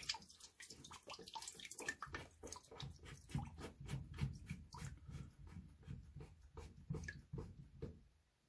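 Black plastic cold-water inlet filter cap of a Navien tankless water heater being pushed and screwed back into its port by hand. Faint, irregular small clicks and rubbing, with soft low bumps, that stop about eight seconds in.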